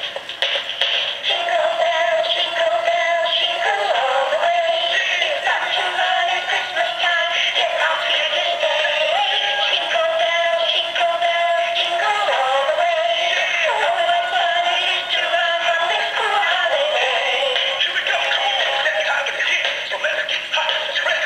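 Hip Hop Randy animated singing plush bear playing a Christmas song through its built-in speaker: a continuous electronic vocal with music and almost no bass.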